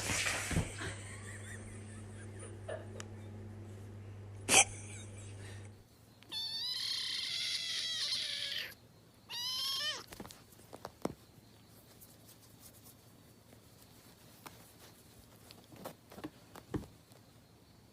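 Cat meowing: one long, wavering meow about six seconds in, followed by a shorter meow that drops in pitch at the end. Before the meows there is a steady low hum with one sharp click, and afterwards only a few faint taps.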